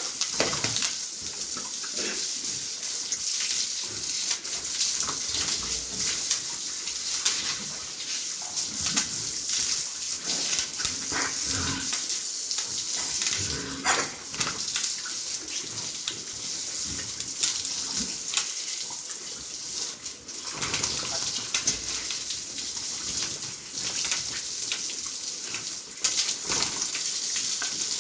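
Pigs being washed: water spraying steadily, with the pigs calling out now and then.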